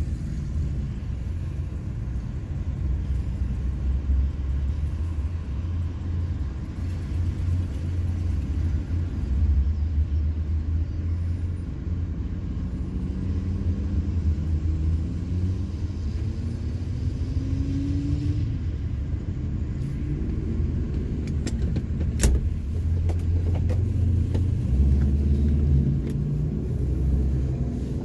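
Car engine idling with a steady low rumble, heard from inside the cabin. About halfway through, another car accelerates past with a rising engine note. A few sharp clicks follow a little later, the loudest of them the loudest sound here.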